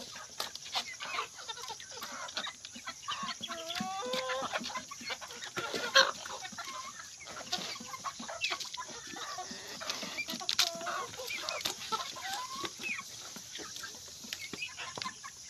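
A flock of hungry chickens clucking in short, wavering calls as they crowd round to be fed, over scattered sharp clicks and knocks, the loudest a knock about six seconds in.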